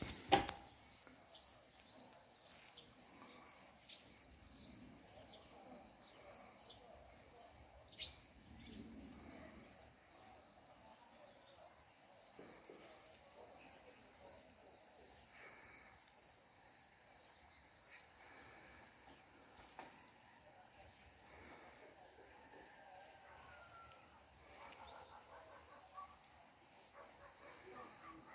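A cricket chirping steadily, a high, even chirp about three times a second. A sharp knock sounds right at the start and another about eight seconds in.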